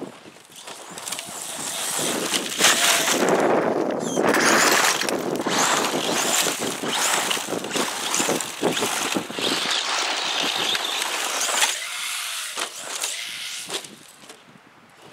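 Traxxas Slash 4x4 VXL radio-controlled short-course truck running hard on a dirt and gravel track: its Velineon brushless motor and drivetrain whine while the tyres spray gravel. The sound builds from about a second in as the truck comes close, stays loud, then fades near the end as it drives off.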